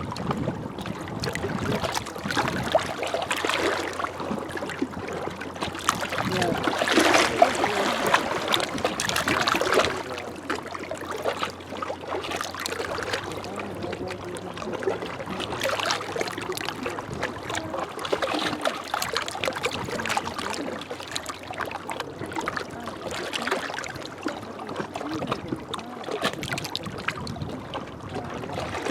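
Small waves lapping and splashing against the shore, rising and falling irregularly, loudest about seven to nine seconds in.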